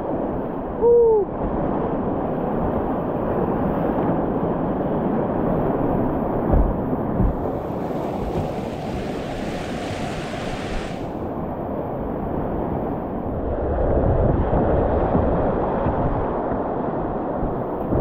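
River rapids rushing steadily. A short falling hoot sounds about a second in, two low knocks come a little before the middle, and a brighter hiss of spray lasts about three seconds past the middle.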